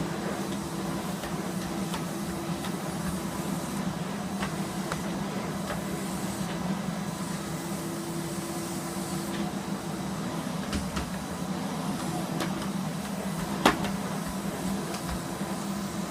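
Electrolux 350e cylinder vacuum cleaner running steadily with a constant hum, with a few light clicks and one sharp knock about three-quarters of the way through.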